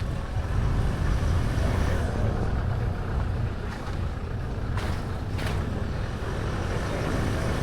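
A car driving, with a steady low rumble of engine and road noise. There are two brief knocks about five seconds in.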